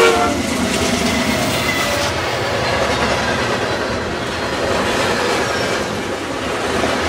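CN diesel freight train passing close by. The locomotive horn's chord cuts off just after the start, the trailing diesel locomotive goes by, and then the freight cars rumble and clack steadily over the rails.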